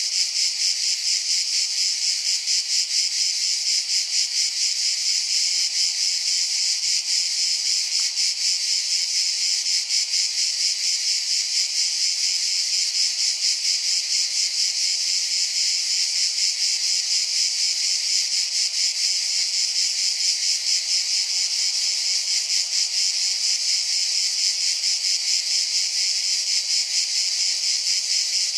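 Steady, high-pitched insect chirring: a dense, fast-pulsing buzz that does not change.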